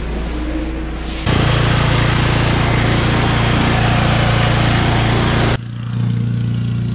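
Gas-engine pressure washer running steadily, with a loud hiss from the spray gun's high-pressure water jet that cuts in about a second in and cuts off suddenly about four seconds later.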